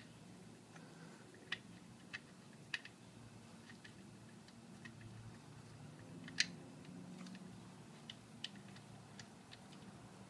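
About a dozen short, sharp clicks and taps at irregular intervals, the loudest about six seconds in, over a faint low hum.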